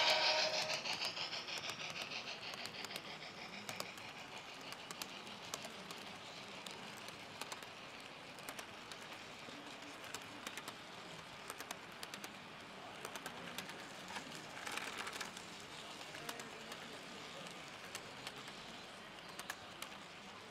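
Model trains running on a layout: a train rolls close past and fades over the first couple of seconds, then a steady clicking of model wheels over the track runs on.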